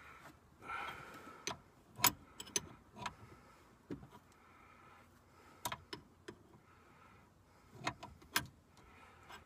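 A 3/4-inch open-end wrench clicking and tapping against the adjuster nut of a Jeep Cherokee XJ's sway bar link as it is fitted and turned to lengthen the link: a handful of sharp, irregularly spaced clicks.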